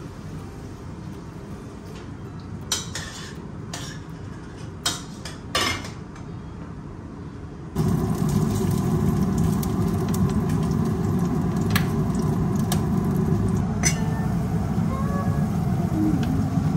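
Kitchen cooking sounds: a few sharp clinks of utensils against cookware, then from about eight seconds in a louder steady rushing noise with occasional clinks, while salmon is turned in a frying pan.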